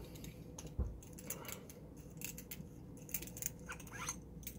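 Faint, scattered metallic clicks and taps from a metal lightsaber hilt being turned over in the hands, with a soft low thump about a second in.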